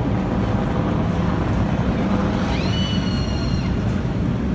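Steady rumble of the NASCAR field's V8 stock car engines running at pace-car speed before the green flag. A high tone rises about two and a half seconds in, levels off and holds for about a second.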